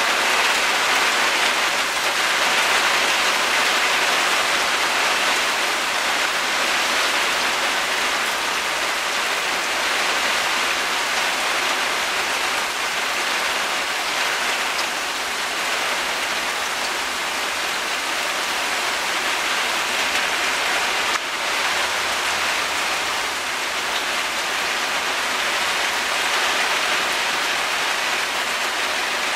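Steady rain pouring down, a dense, even hiss of drops on leaves and surfaces.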